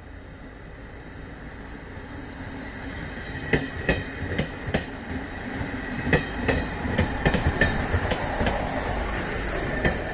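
HŽPP passenger train passing slowly, with a low running rumble that builds up. From about three and a half seconds in, its wheels click sharply over the rail joints and points, and the clicks come quicker and louder as the carriages go by.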